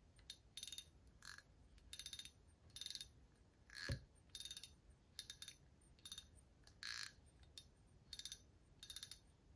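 Penn Authority 2500 spinning reel's drag clicking as the spool is turned by hand: short rattles of rapid clicks, repeated about every two-thirds of a second. One heavier knock comes about four seconds in.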